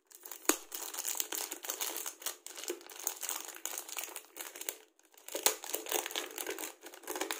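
Clear plastic bag crinkling and crackling as a speed cube is worked out of it, with a sharp click about half a second in and a short lull about five seconds in.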